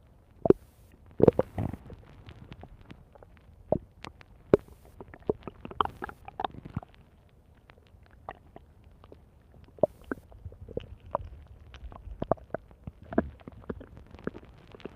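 Stomach growling: an irregular run of gurgles, squeaks and pops over a low rumble, with the sharpest pops about half a second and a second and a half in.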